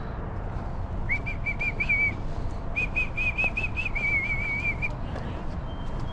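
A bird singing: two runs of quick, repeated whistled notes, about five a second, the first about a second in and the second, longer run after a short pause. A steady low rumble lies underneath.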